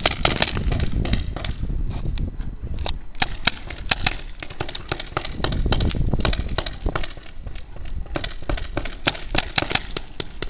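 Paintball markers firing: many sharp pops, some single and some in quick strings of several shots, over a low rushing noise.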